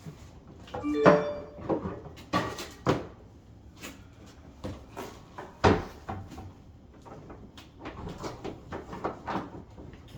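Irregular knocks, scrapes and clatter of hands and tools working at a dishwasher being pulled out from its counter opening, with a brief metallic ring about a second in.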